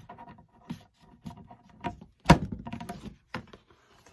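A refrigerator's access panel being taken off and handled: scattered clicks and scrapes, with one loud knock a little over two seconds in.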